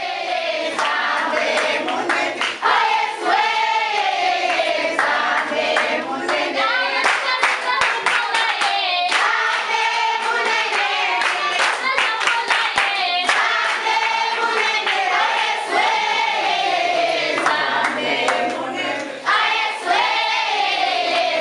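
A choir of voices singing together, with a few handclaps.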